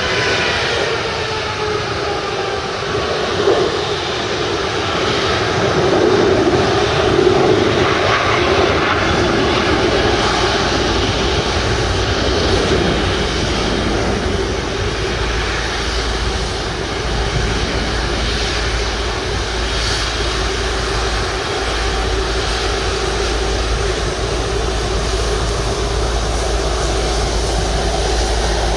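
Boeing 777-300 jet engines running at low thrust as the airliner taxis slowly, with a whine that falls in pitch over the first couple of seconds and then holds steady. A low rumble joins about ten seconds in.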